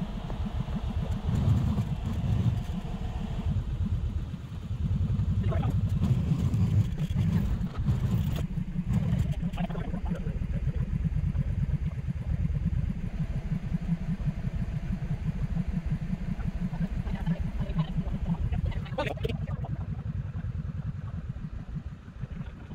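A vehicle engine running steadily, with a low rumble that goes on throughout.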